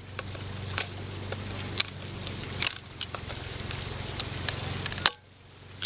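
Sharp clicks and scrapes of the wooden lid being pried off a package of bees, over a steady low hum. The sound cuts off suddenly about five seconds in.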